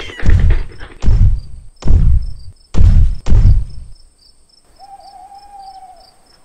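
Heavy, booming cartoon footstep thuds from a giant's bare feet, five of them in about three and a half seconds, which then stop. Crickets chirp steadily underneath.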